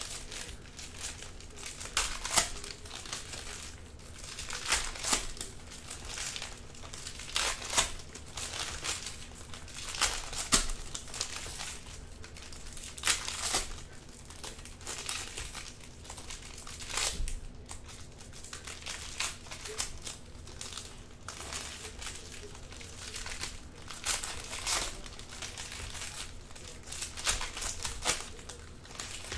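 Foil wrappers of Panini Prizm retail trading-card packs being torn open and crumpled: sharp crinkling and tearing in uneven bursts, one every second or two.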